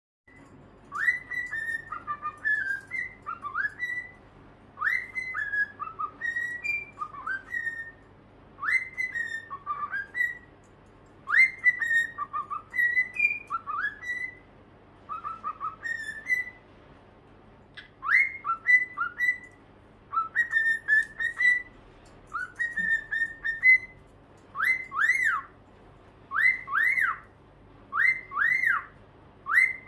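Cockatiels whistling in short, repeated whistled phrases, with brief pauses between bouts. Near the end the phrases give way to single whistles that swoop up and down, about one a second.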